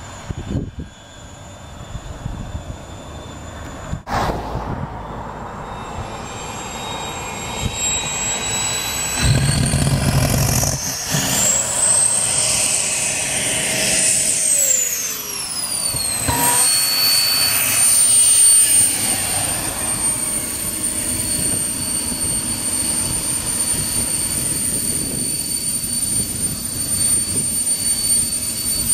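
Boeing 502 gas-turbine engine of a jet-powered T-bucket hot rod, running with a high whine that climbs in pitch and grows louder over the first half. The whine glides down about halfway through, then holds steady.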